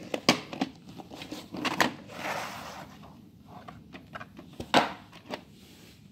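A VHS cassette and its box being handled: a string of sharp clicks and knocks of plastic, with a rustling slide about two seconds in as the cassette comes out of the box, and the loudest knock near the end.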